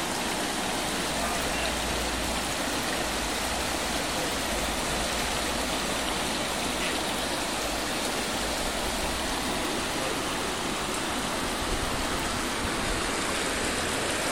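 Floodwater rushing past a mill, a steady, unbroken noise of fast-flowing river water in spate.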